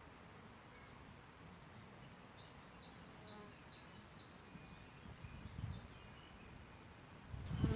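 A bee buzzing close to the microphone, rising briefly about five seconds in and louder near the end, over faint high chirps in the background.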